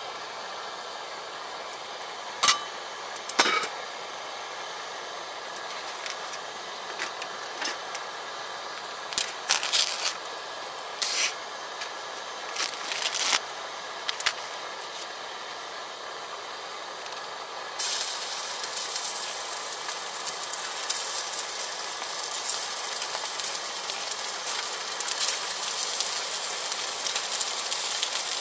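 Wood fire burning with a steady hiss and scattered sharp crackles and knocks; about two-thirds of the way in, the hissing suddenly grows louder and brighter.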